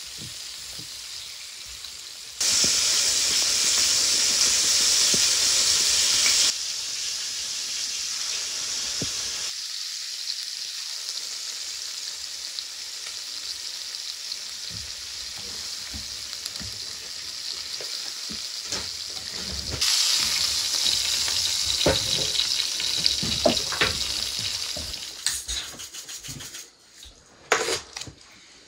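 Chunks of meat and fish fillets sizzling in cast iron frying pans, the sizzle loudest for a few seconds early on and again about twenty seconds in. A few sharp clicks and knocks come near the end as the sizzle fades.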